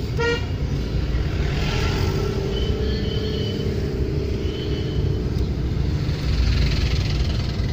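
Steady low rumble of a car's engine and tyres heard from inside the cabin while driving. A short pitched tone sounds briefly near the start.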